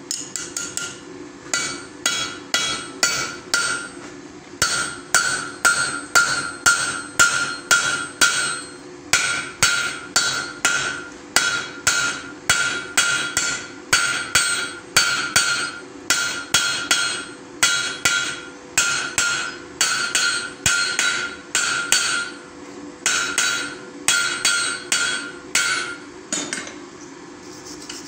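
Hand hammer peening a hot rivet over steel on the anvil: sharp ringing blows about two a second, in runs broken by short pauses. The hammering stops a couple of seconds before the end.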